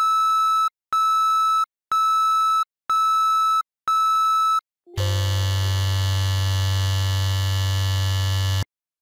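Basketball timer program's shot-clock sound effects: five short, high beeps, one a second, as the shot clock counts down its last five seconds. Then a long, low buzzer sounds for about three and a half seconds, signalling the 24-second shot-clock violation.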